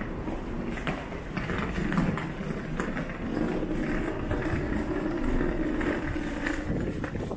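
Suitcase wheels rumbling over paving tiles, with footsteps, over a steady low rumble that grows a little stronger midway.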